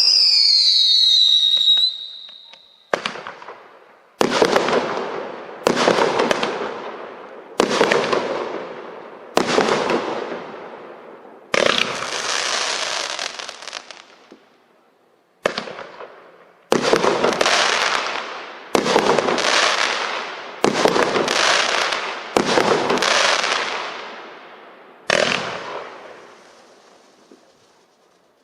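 Multi-shot fireworks cake firing shot after shot: about a dozen sharp reports one to two seconds apart, each trailing off in a fading crackle and hiss. It opens with a high whistle falling in pitch.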